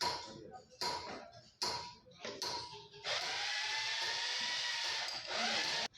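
Workshop tool noise: four sharp strikes about a second apart, then a power tool running steadily for about three seconds, its pitch sagging briefly as it takes load.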